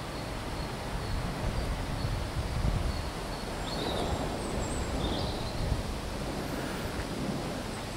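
Low rumble of an LMS Black Five 4-6-0 steam locomotive and its coach drawing away into the distance, mixed with wind noise on the microphone.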